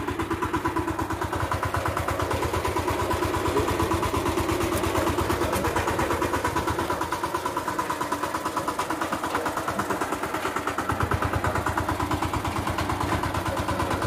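A VST power tiller's single-cylinder diesel engine running steadily with a fast, even chug.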